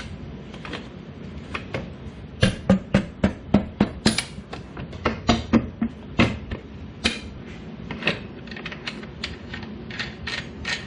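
Sharp metallic clicks and taps, irregular at about two to four a second, from hand tools and parts being worked on a motorcycle's rear wheel and sprocket hardware.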